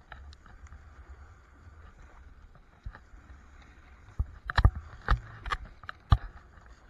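Snowboard sliding and carving through powder snow, picked up by an action camera held on a pole, with a run of sharp knocks from about four to six seconds in.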